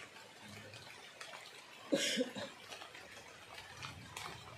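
Steady hiss of rain falling on a swollen, flooded river, with one short, loud noise about two seconds in.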